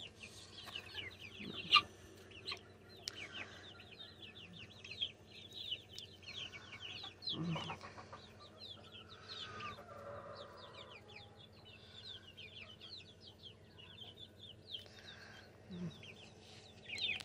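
A flock of young Silkie, Polish and Cochin chicks peeping continuously, many short high peeps that slide downward and overlap. A single sharp tap about two seconds in.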